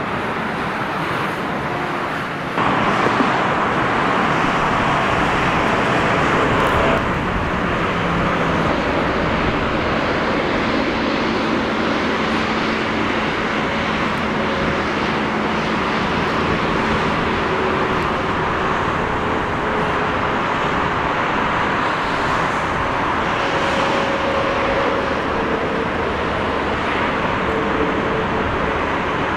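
Jet airliner engines at high power, a steady roar with faint steady hums underneath, as a Boeing 787 makes its takeoff run and rotates. The roar steps up abruptly about two and a half seconds in and changes again about seven seconds in.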